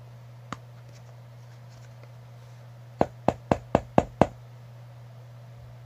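Six quick, sharp taps, about four a second, from a plastic tube of moon-dust sand being tapped to shake the sand out, after a single faint click. A steady low hum sits underneath.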